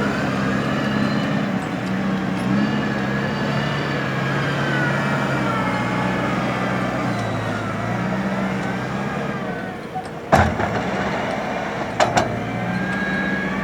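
Hydrema 906D backhoe loader's diesel engine running under working load, its note shifting up and down with a wavering higher whine above it. Two sharp knocks about two seconds apart near the end.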